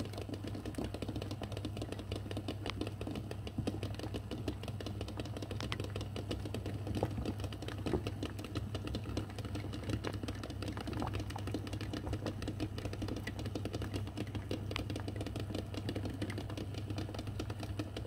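Eggs boiling in a pot of water: a dense, even stream of quick bubbling ticks and pops, over a low steady hum.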